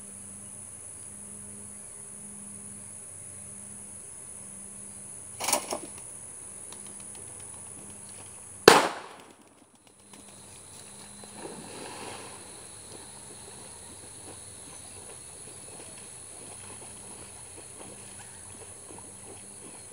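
A retrieving-dummy launcher on the pond bank firing: two small pops, then about three seconds later one sharp, loud bang as the dummy is thrown out for the duck-dog retrieve. A softer splashing follows a few seconds after the bang.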